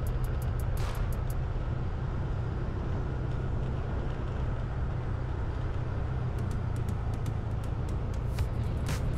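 Background music with a steady deep bass and a fast ticking hi-hat; the ticks drop out for a few seconds in the middle and come back near the end.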